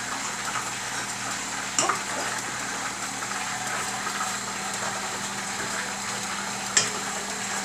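KitchenAid stand mixer running with a steady motor hum, its dough hook turning pizza dough in a steel bowl. Two sharp clicks about five seconds apart, the second the louder.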